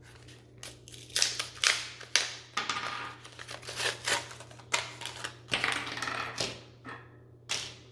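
Small plastic parts being handled and fitted together by hand: an irregular string of sharp clicks, scrapes and rustles, over a steady low hum.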